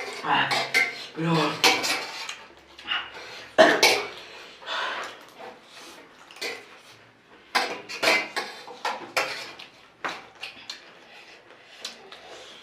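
Spoons clinking and scraping against plates and bowls in irregular sharp knocks as several people eat quickly, with brief voices between.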